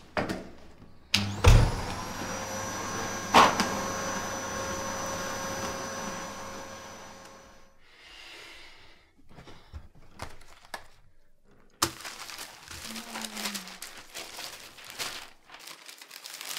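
Red canister vacuum cleaner switched on about a second in with a thump, its motor spinning up and running steadily, then stopping about eight seconds in. Quieter rustling and small knocks follow.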